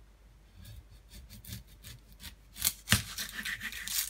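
Kitchen knife scraping and trimming the dry papery skin off a whole onion on a plastic cutting board: a run of short rasping, crackling strokes, with two sharper knocks about three seconds in, then a denser crackle of skin coming away near the end.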